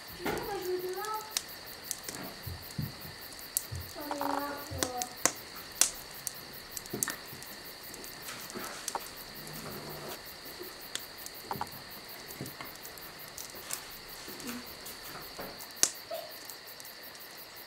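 Quiet room ambience with a steady high-pitched tone, scattered light clicks and clinks, and a child's voice heard briefly twice near the start.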